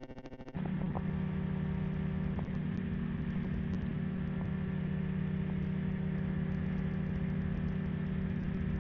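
Weight-shift ultralight trike's pusher engine and propeller running steadily in flight, an even drone that steps up in level and settles about half a second in.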